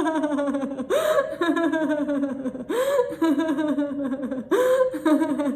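A woman's laughter-yoga laugh on 'hee-hee', in three bursts of quick pulsed syllables. Each burst starts high after a gasping breath in and steps down in pitch.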